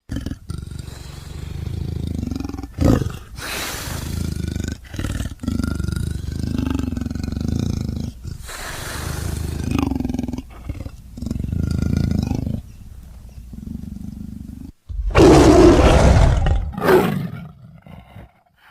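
Big-cat sound effects: a run of low rumbling growls and snarls with short pauses, then a loud roar near the end followed by a shorter one.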